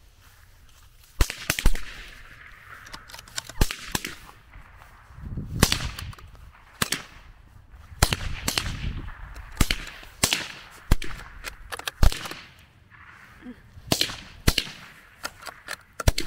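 .22 LR rifles firing: about twenty sharp cracks at an uneven pace, some coming in quick pairs as more than one rifle fires at once, starting about a second in.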